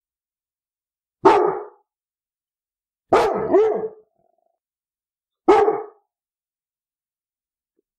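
Labrador retriever barking: one bark about a second in, two quick barks about three seconds in, and one more bark past the middle, with silence between them.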